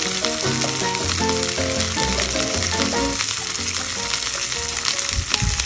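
Sea bream sizzling dry, without oil, in the stainless pan of a Saladmaster electric skillet: a steady frying hiss, with background music over it.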